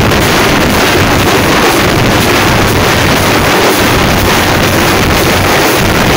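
A troupe of thappu (parai) frame drums beating hard and fast, so loud that it overloads into a steady, distorted rush.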